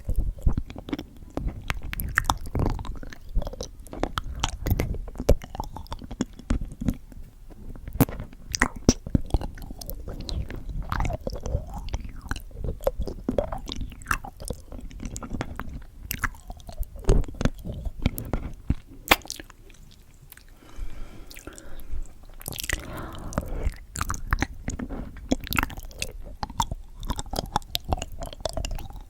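Candy being bitten and chewed close to an ASMR microphone: irregular crunches, crackles and wet mouth clicks.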